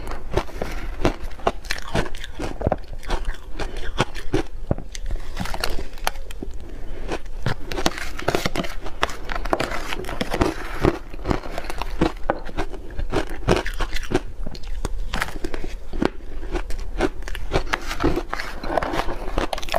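Crunching of shaved ice thick with sweet potato powder: a metal spoon scraping and digging into the icy mass in a plastic tub, together with bites and chewing of mouthfuls. A rapid, irregular stream of crisp crunches and clicks.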